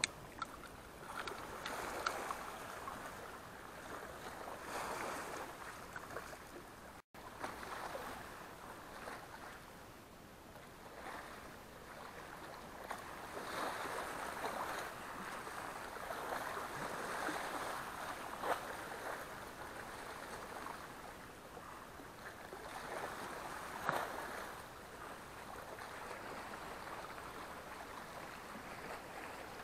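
Small sea waves lapping and splashing against shoreline rocks, a washing noise that swells and fades every few seconds. A few sharp clicks stand out above it.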